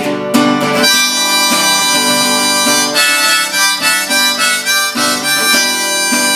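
Harmonica playing an instrumental break of held, chord-like notes over a strummed acoustic guitar.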